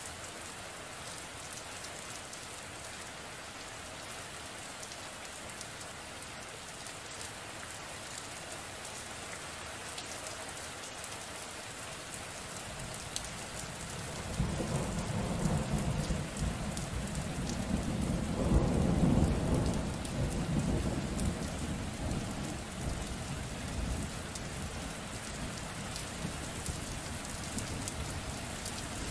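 Steady rain falling, with a long rolling thunder rumble that comes in about halfway through, swells to its loudest a few seconds later, then eases back to a low rumble under the rain.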